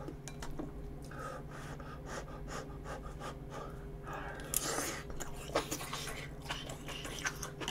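A person blowing on a hot bite of spicy tripe stew in short breathy puffs, then slurping it in about four and a half seconds in and chewing, with a few small clicks.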